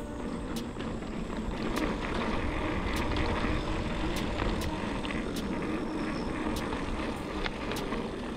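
Mountain bike rolling along dirt singletrack, heard from a handlebar-mounted camera: steady tyre and wind rumble, with sharp ticks and rattles from the bike about once a second.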